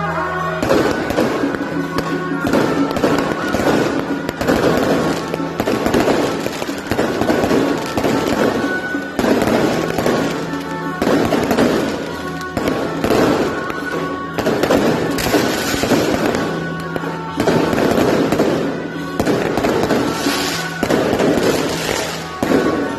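Fireworks going off in a dense run of crackling bangs that swell and ease every second or two, with music playing underneath.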